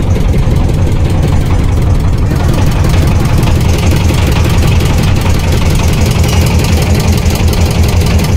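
Motorised river trawler's inboard engine running steadily under way: a loud, low, even throbbing.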